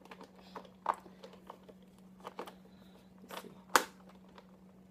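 Scattered clicks and knocks of hard plastic with light rustling as a coffee maker's power cord, stuck in its storage compartment, is worked loose; one sharp knock about three-quarters of the way in. A faint steady low hum underneath.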